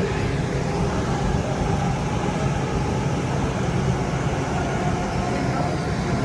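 Inside a Seattle Link light rail car, a Kinkisharyo-built train running at speed: steady low rumble of the wheels on the track, with a faint, even whine over it.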